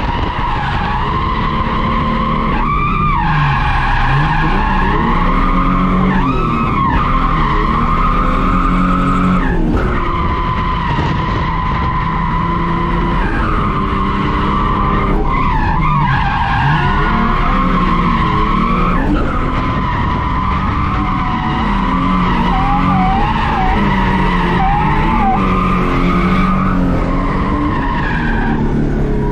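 A VS Commodore's standard 3.8-litre V6 at high revs during a drift run, heard from inside the cabin over tyres skidding on the tarmac. The revs dip and climb back several times.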